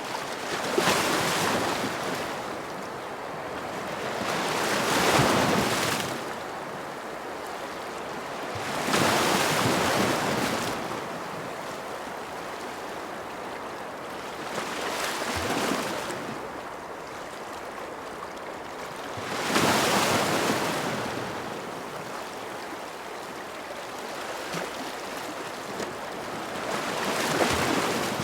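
Ocean waves washing onto a shore, each wave swelling and fading in turn about every four to six seconds, six in all.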